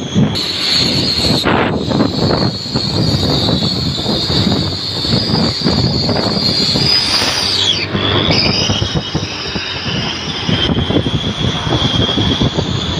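Daihatsu Gran Max pickup's exhaust fitted with a homemade 'suos' whistle tip, made from bicycle headset cups, giving a loud jet-like hiss with a high whistle over the engine. The whistle's pitch follows the revs: it climbs, dips sharply about eight seconds in, then picks up again at a lower pitch.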